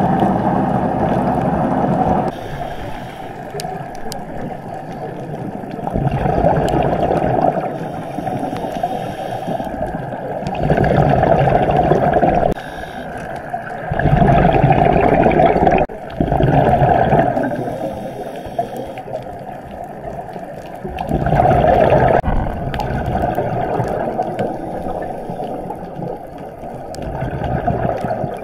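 Scuba regulator exhaust bubbles heard through an action camera's underwater housing: a rushing, gurgling burst of bubbles about every three to five seconds, each lasting one to two seconds, with the diver's breathing cycle between them.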